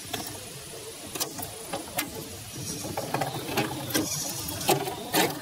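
Reely Free Men RC scale crawler's electric motor and geared drivetrain whirring as it crawls, with a series of sharp cracks and knocks as its tyres roll over twigs and stones, the loudest near the end.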